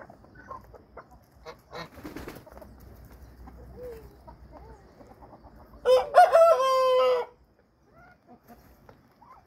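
Rooster crowing once, a single call of about a second and a half that starts about six seconds in, amid soft clucking of chickens.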